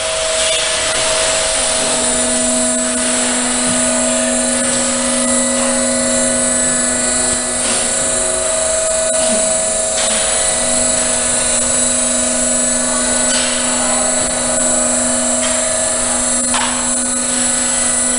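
Hydraulic scissor lift table's electric pump unit running steadily while the platform rises, a constant whine and hum with a high hiss and a few faint ticks.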